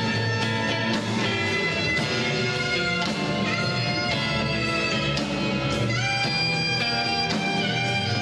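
Music: sustained melodic notes, two of them sliding upward in pitch partway through, over evenly spaced percussive strokes about twice a second.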